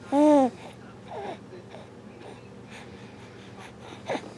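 A baby cooing: one loud coo that rises and falls in pitch at the start, a softer one about a second in, and a short one near the end.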